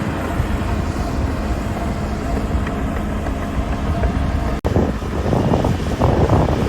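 Diesel engine of a CAT D5G XL crawler bulldozer running steadily while pushing soil. About two-thirds of the way through the sound cuts out for an instant, then returns rougher and louder.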